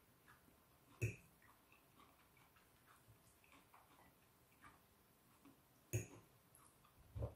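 Metal fork clicking against a plate as it picks up food, three sharp clinks, about a second in, near six seconds and just before the end, with a few faint ticks between; otherwise near silence.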